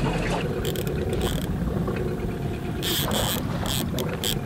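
Several short bursts of mechanical ratchet-like clicking, one about a second in and a cluster near the end, over the steady low hum of a boat motor.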